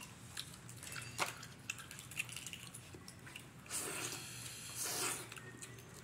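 Boiled crawfish being peeled and eaten by hand: small cracks and clicks of shell, with wet sucking and chewing, and two longer, noisier sucks about four and five seconds in.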